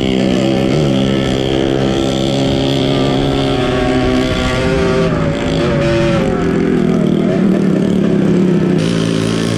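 Kawasaki KMX125 two-stroke single-cylinder dirt bike engine running under way, its note rising and falling with the throttle and dipping briefly about halfway through.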